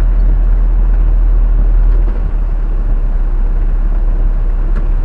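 Jeep Wrangler Unlimited driving along a dirt off-road trail, heard from inside the vehicle: a steady low rumble of engine and tyres.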